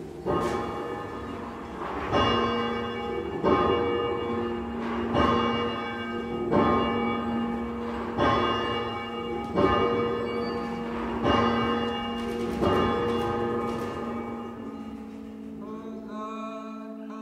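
A church bell tolling, about nine strokes roughly one and a half seconds apart, each ringing on. Near the end the tolling dies away and a held musical tone comes in.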